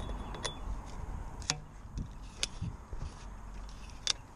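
Aluminium oar sections being handled, giving about four sharp metallic clicks and clinks a second or so apart, over a low background rumble.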